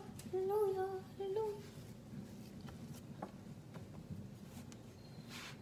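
A high voice humming a few held notes of a tune for about a second and a half. Then faint light ticks, and near the end a short soft scrape as a round cutter is pressed into rolled cookie dough on a wooden board.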